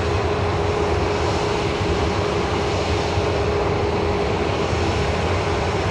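Jet airliner's engines at takeoff power as it climbs away after takeoff: a steady rumbling drone with one held tone running through it.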